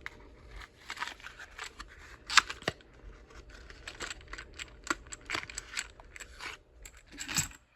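A box of 5.56 rifle cartridges being opened and handled: a string of small clicks, scrapes and rustles, with sharper clicks about two and a half seconds in and near the end.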